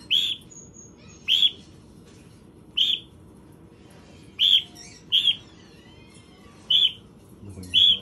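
A cockatiel calling: seven short, high chirps, about a second apart.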